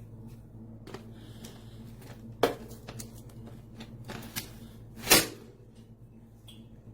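Scattered clicks and knocks of objects being handled, the two loudest about two and a half and five seconds in, over a steady low hum.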